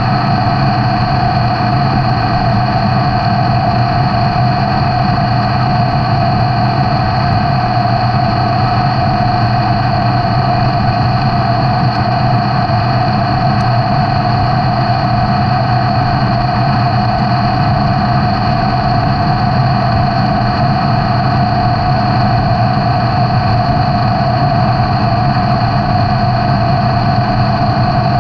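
Metal lathe running steadily, turning a steel gear blank, with an unbroken machine whine and cutting noise.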